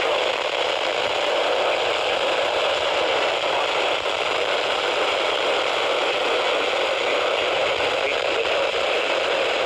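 Steady radio static: an even hiss from a radio receiver, holding at one level throughout.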